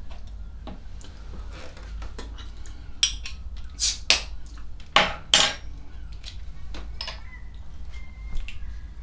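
Something being handled and opened by hand on a table: scattered clicks and clinks, with four short, loud bursts of noise in the middle.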